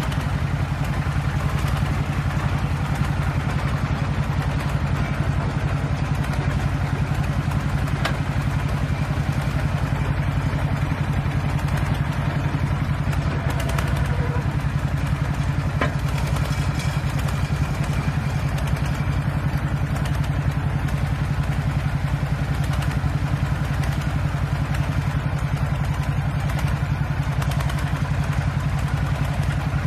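Tractor-mounted drilling rig at work: the tractor's engine runs at a steady speed driving the rig, with a couple of brief sharp clicks.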